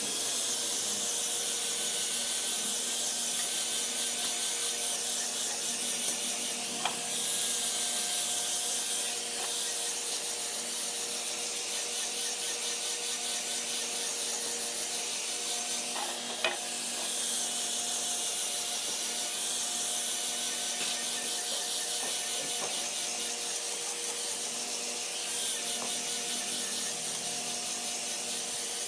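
Electric angle grinder with a sanding disc, running steadily and sanding a wooden chair frame: a steady motor whine under the hiss of the abrasive on the wood. A brief knock about seven seconds in and another at about sixteen seconds.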